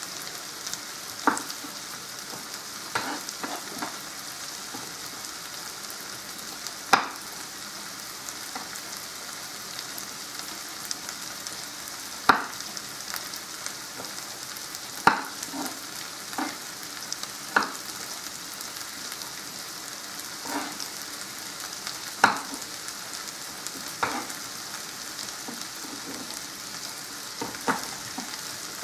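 A pan of risotto rice cooking in stock, sizzling steadily. Sharp kitchen knocks break in every second or two at uneven intervals.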